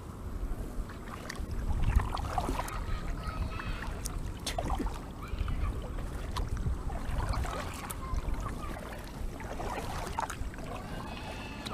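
Kayak paddle strokes dipping and splashing, with scattered sharp clicks. A child cries in the distance, several drawn-out wavering wails a few seconds apart.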